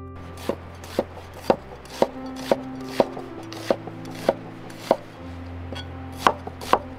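Large cleaver-style knife slicing a halved onion on a wooden cutting board: crisp cuts, each ending in a knock on the board, about two a second, with a brief pause before the last few strokes.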